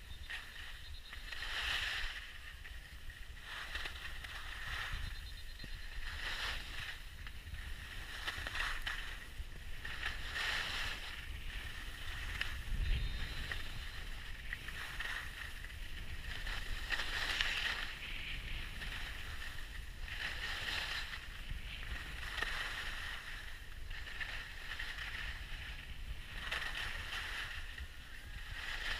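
Skis or a snowboard sliding down a groomed piste, the edges scraping and hissing on packed snow with a swell about every two seconds as each turn bites. A steady low rumble of wind on the microphone runs underneath.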